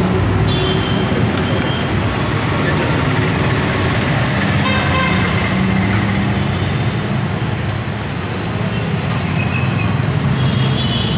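Busy road traffic running steadily, with vehicle horns honking several times: near the start, around the middle and near the end.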